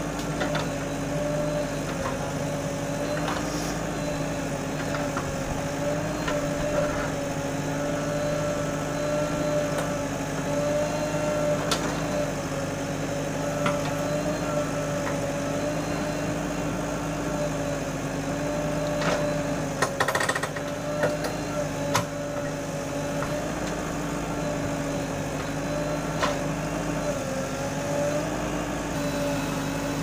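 JCB 3DX backhoe loader's diesel engine running steadily under the working hydraulics as the backhoe bucket digs out a tree stump. Several sharp knocks and clanks stand out, most of them bunched about two-thirds of the way through.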